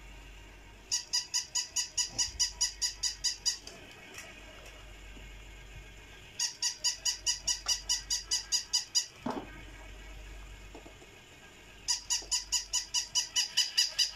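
Electronic barking from a battery-powered toy dog: three runs of rapid, high-pitched yaps, about five a second, each run lasting about two and a half seconds with short pauses between.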